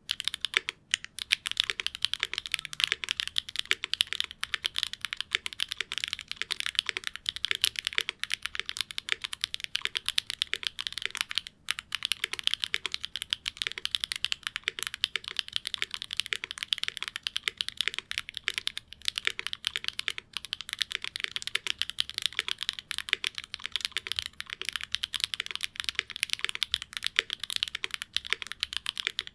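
Fast, continuous typing on the letter keys of a QK75N mechanical keyboard with stock SWK Jieum V2 switches, a carbon fiber plate with plate foam, and GMK keycaps: a clacky keystroke sound, with one brief pause near the middle.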